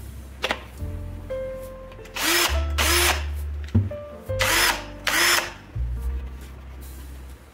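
Ingco 20V cordless drill motor run in four short bursts, in two pairs, each spinning up quickly and stopping, over background music.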